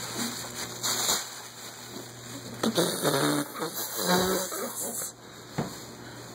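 Thin plastic bag rustling and crinkling as a cat shifts about inside it, with a few short vocal sounds about three to four seconds in.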